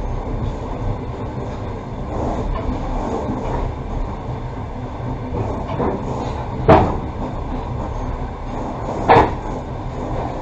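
Passenger train carriage running on the rails with a steady rumble, broken twice in the second half by a short, sharp, loud sound.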